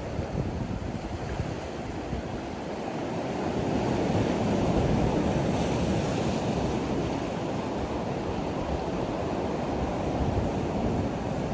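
Sea swell washing against coastal rocks, swelling and easing about midway, with wind buffeting the microphone.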